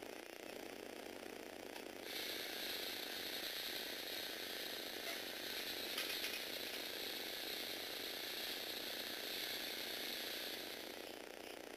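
LEGO Technic shake table's motors and plastic gear train running, a steady whirring rattle that starts about two seconds in and eases off near the end.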